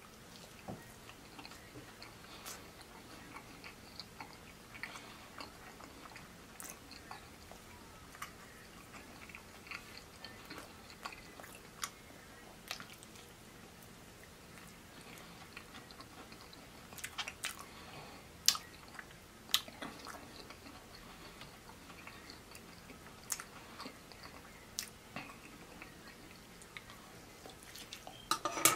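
Close-up chewing of fried chicken pieces, with scattered short sharp clicks; several louder clicks come a little past the middle and a quick cluster near the end.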